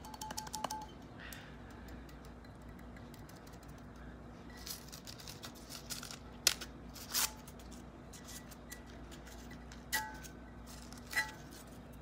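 Tissue paper crinkling and tearing in a few short bursts, with small clicks and taps from handling the tumbler and craft materials, over a faint steady hum. Two brief ringing ticks come near the end.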